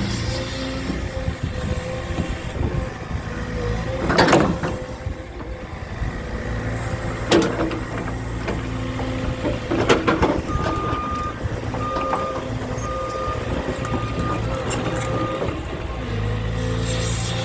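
A heavy diesel machine or truck engine running steadily, with a few loud knocks. In the second half its reversing alarm beeps five times, about once a second.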